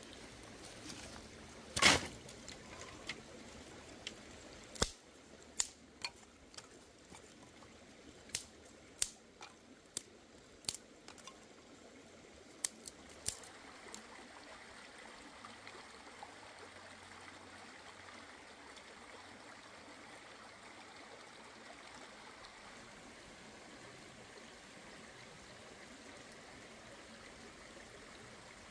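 Water running steadily in a stream, with about a dozen sharp clicks or snaps in the first half; the first is the loudest.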